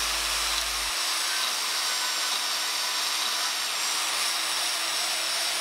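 Small bandsaw running steadily with a low hum, its blade cutting through a small block of 303 stainless steel.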